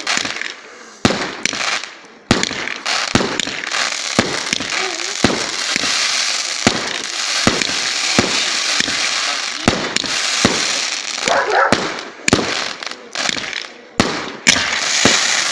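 Fireworks going off: a long run of sharp bangs at irregular intervals, some close together, over continuous crackling.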